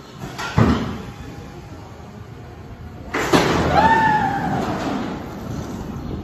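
Matugani roller coaster train in its station: a sharp clunk about half a second in, then about three seconds in a burst of noise and a rising-then-falling whine as the train starts to roll out of the station.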